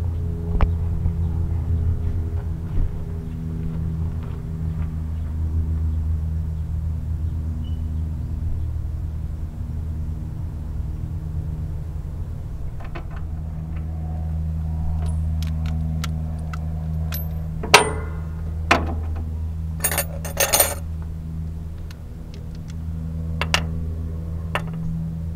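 A steady engine-like running hum throughout, with a few sharp metallic knocks and a brief jangling clatter about two-thirds of the way through.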